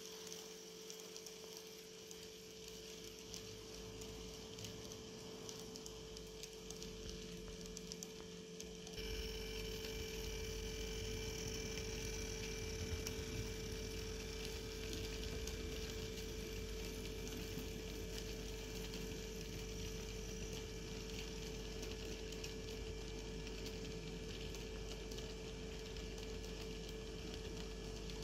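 H0-scale model freight train running: a steady electric hum from the Roco BR185 model locomotive's motor, with a faint rattle of the wagons' wheels on the track. About nine seconds in the sound gets louder and fuller.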